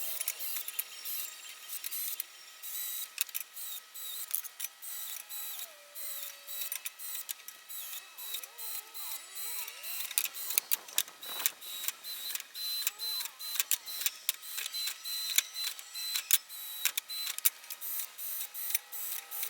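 Cordless drill pre-drilling pilot holes in wooden pieces so they don't split, amid many quick clicks and knocks. A thin, high whine comes and goes, strongest in the second half, and the sound has almost no low end.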